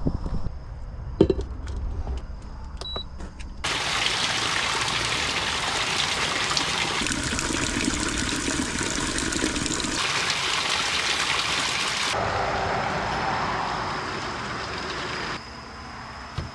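Spring water pouring from a spout and splashing as it fills a plastic water jug, starting suddenly about four seconds in and dying away shortly before the end. A few light knocks and clicks of handling come before it.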